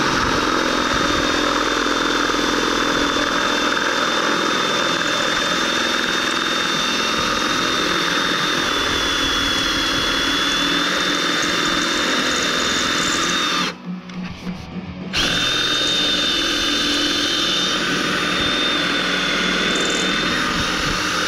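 Handheld electric drill running steadily with a large bit, drilling into the head of a stripped Allen bolt. It stops for about a second and a half about two-thirds of the way through, then starts again.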